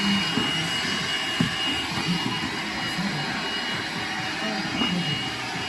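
Vacuum cleaner running steadily: an even rushing noise with a constant high whine.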